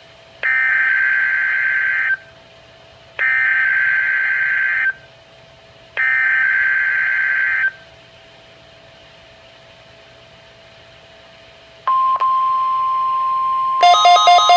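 NOAA Weather Radio SAME digital header for a Required Weekly Test: three harsh data bursts, each about a second and a half long with roughly a second between them, played through a Midland WR-120 weather radio's speaker. About twelve seconds in a steady tone starts, and near the end the radio's rapid pulsing alert beeps join it as it decodes the test.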